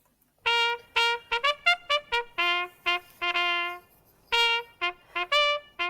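A short tune played on a trumpet as a run of separate, clearly tongued notes, in two phrases with a brief pause between them about two-thirds of the way through.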